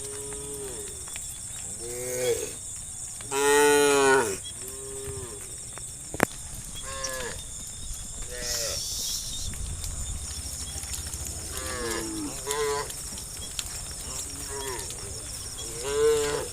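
A herd of cattle mooing: a dozen or so short calls from several animals at different pitches, some overlapping, with the loudest about four seconds in and another near the end.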